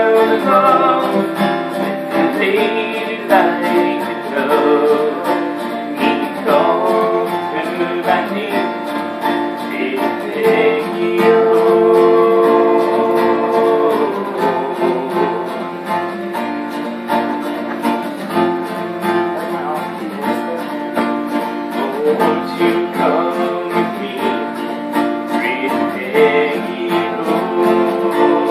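Acoustic guitar strumming with a voice singing the melody over it, including one long held note about ten to fourteen seconds in.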